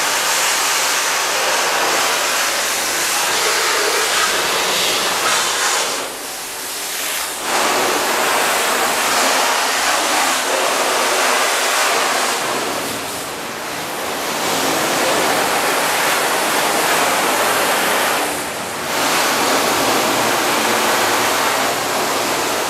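Water from a handheld garden-hose spray nozzle spraying onto a car's painted bonnet: a steady loud hiss and splatter that eases off briefly three times as the spray stops or moves.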